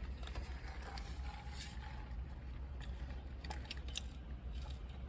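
Someone chewing a burger, with small wet mouth sounds and faint scattered clicks, over a steady low hum.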